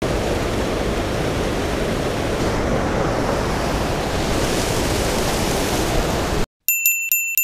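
Steady rushing of creek water over a low weir, picked up on an action camera's microphone, cutting off abruptly near the end. A quick run of bright, bell-like dings follows.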